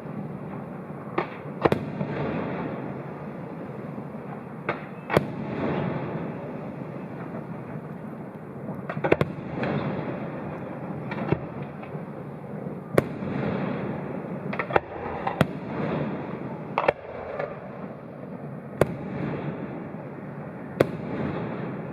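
Aerial fireworks shells bursting: a dozen or so sharp bangs at irregular intervals of about one to two seconds, sometimes in quick pairs, over a continuous rumble and crackle.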